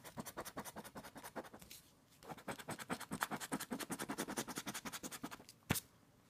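Rapid back-and-forth scratching on a scratch-off lottery ticket, about ten strokes a second. It comes in two runs with a short pause about two seconds in, and a single sharp tap near the end.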